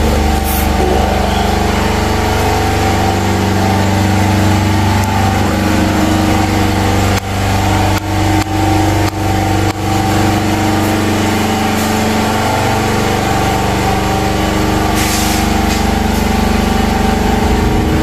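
Power generator engine running with a steady drone. The sound dips sharply for a moment several times about halfway through.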